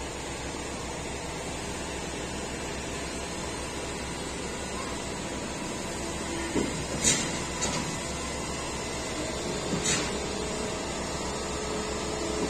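Steady outdoor city background noise, a broad hum of distant traffic, with a few short sharp sounds over its second half.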